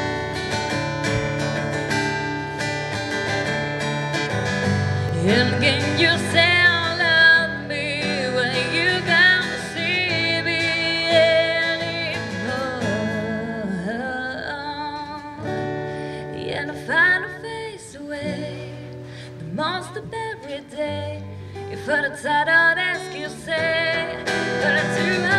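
A woman singing a song in English to her own strummed acoustic guitar; the guitar plays alone for the first few seconds before the voice comes in.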